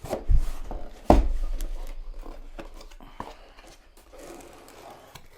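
A cardboard shipping box handled on a desk: two knocks about a second apart, the second louder, then a click and quieter rubbing and scraping of cardboard.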